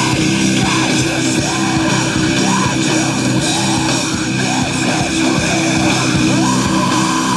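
Rock music, "teenage angst music", with guitar and singing, played loud through a floor-standing hi-fi speaker. The speaker is driven by a home-built JAT501 transistor power amplifier on its first listening test.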